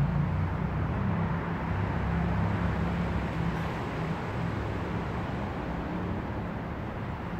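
Steady low outdoor background rumble with a faint wavering hum underneath, and no distinct impacts or events.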